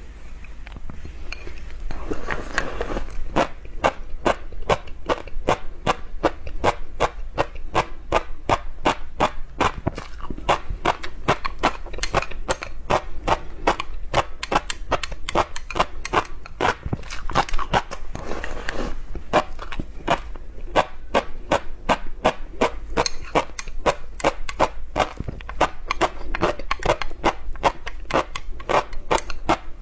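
Close-miked chewing of black fish roe: a rapid, even run of crisp pops, about three or four a second, as the eggs burst in the mouth, over a low steady hum.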